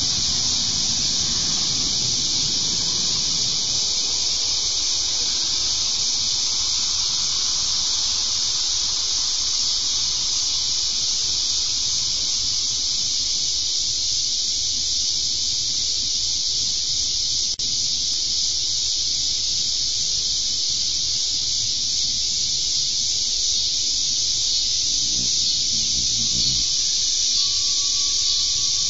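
Steady, high-pitched chorus of insects shrilling without a break. A passing car adds a low rumble in the first few seconds.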